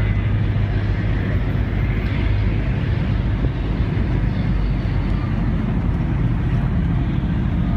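Steady low rumble of outdoor city noise, with no distinct events.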